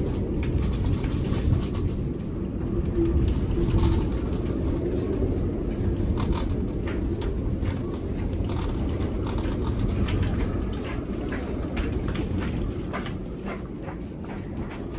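A gust of wind buffeting a moored motorboat and its canvas canopy: a steady low rumble with scattered sharp taps, easing off somewhat near the end.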